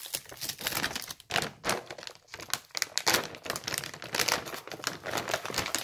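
Irregular crinkling and rustling close to the microphone.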